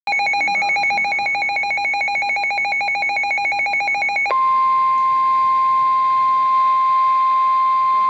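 SAME weather alert radio sounding a severe thunderstorm warning: a rapid, warbling electronic alarm that pulses many times a second, switching about four seconds in to a steady single-pitch tone, the NOAA Weather Radio 1050 Hz warning alarm tone.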